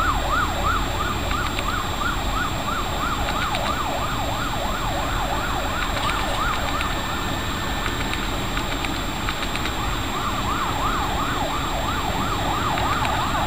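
Police car siren in a fast yelp, a rising-and-falling whoop about three times a second, over a steady low rumble of traffic. It weakens in the middle and grows stronger again in the last few seconds.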